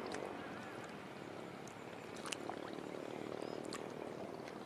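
Steady distant motor drone, with faint bird chirps and a few light clicks over it.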